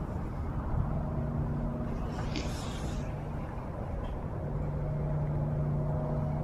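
Low steady hum of a vehicle engine over a rumbling background, fading in and out. A brief high-pitched squeak comes about two and a half seconds in.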